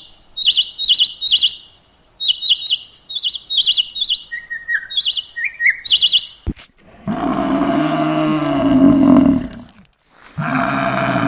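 A bird chirping in quick, high, repeated bursts for about six seconds. After a click, a large animal gives two long, loud, low calls of about three seconds each.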